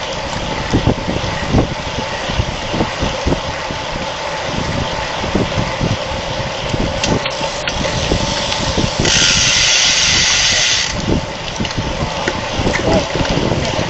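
Wind rushing and buffeting over an action-camera microphone on a road bike ridden at race speed, with a faint steady drivetrain hum. About nine seconds in, a high hiss comes in for about two seconds and then stops.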